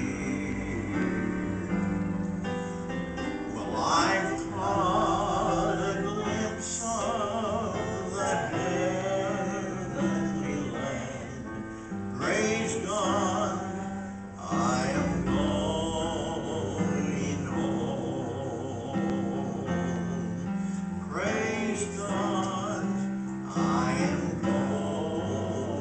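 A man singing a hymn with vibrato to his own accompaniment on a Yamaha Clavinova digital piano, held chords under the melody and the sung phrases starting about four seconds in, with short gaps between them.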